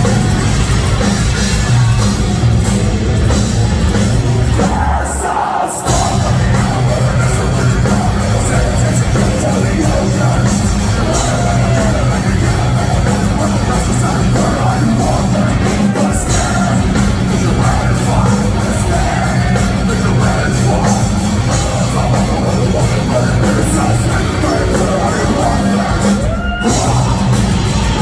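Heavy metal band playing live at full volume: distorted guitars, drums and vocals, with a brief break in the music about five seconds in.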